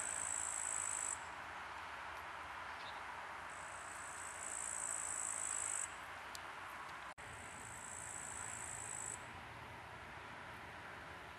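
Insects chirring high and thin in a summer meadow, coming in three spells of a second or two each over a faint steady outdoor background.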